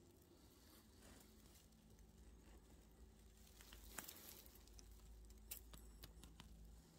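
Near silence: faint low background hum with a few soft handling clicks about four and five and a half seconds in.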